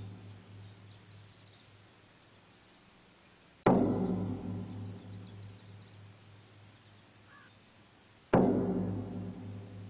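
A deep bell tolling slowly as a funeral knell: one strike about four seconds in and another near the end, each ringing on and fading, over the dying tail of an earlier strike. Birds chirp between the strikes.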